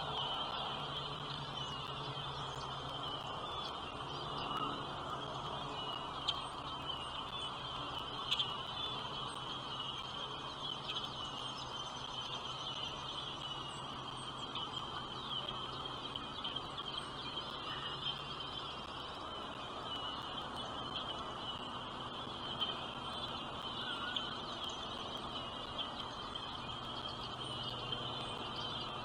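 Nestling birds chirping: many short, high calls crowding over one another without pause, with a few louder chirps standing out.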